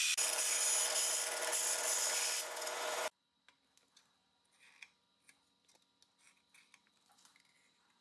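Vertical bandsaw blade cutting through thin aluminum plate: a steady, rasping hiss with a hum under it, which stops abruptly about three seconds in. After that come only faint light taps and scratches of the aluminum pieces being handled on a steel table.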